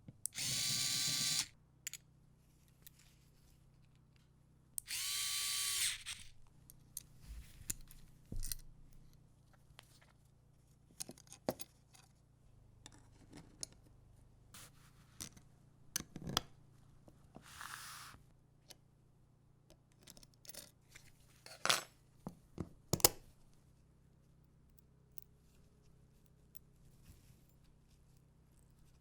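A small power tool runs in two short bursts of about a second each, the first at the start and the second about five seconds in. Scattered sharp clicks and taps follow.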